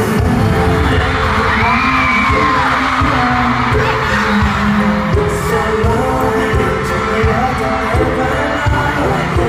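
Live K-pop boy-group performance heard through the arena sound system: male vocals over a heavy, thumping low beat and dense backing music.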